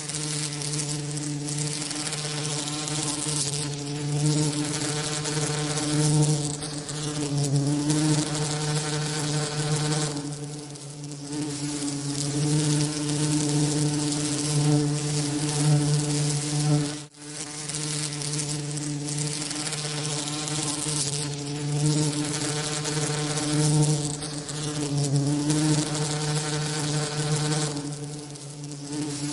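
Bee wing buzzing played as a continuous masking sound: a steady low buzz with a rich ladder of overtones over a bright hiss, swelling and easing slightly, with one brief drop-out about seventeen seconds in.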